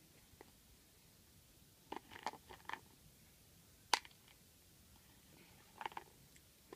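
Faint handling noises: a few light taps and rustles, one sharper click about four seconds in, and a last small cluster of taps near the end, as small air-dry clay pieces are gathered up by hand.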